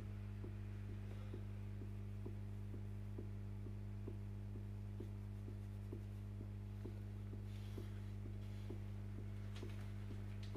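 Soft, regular ticking about twice a second over a steady low hum: the film's repetitive tick, the kind of sound that keeps the sleepless man awake. A few faint rustles come near the end.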